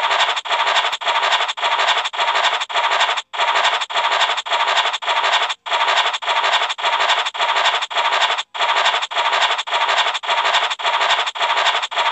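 An online scratch-card game's scratching sound effect, a rasping scrape repeating about three times a second as the covered numbers are scratched away, broken by three brief pauses.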